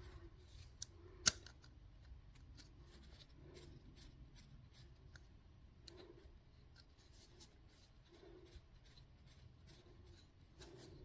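Faint clicks and light rubbing from hands working a small cordless rotary tool, pressing the shaft lock and unscrewing the head to change the bit, with one sharper click about a second in. The motor is not running.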